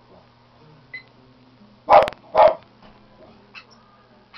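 A dog barking twice, about half a second apart, around two seconds in.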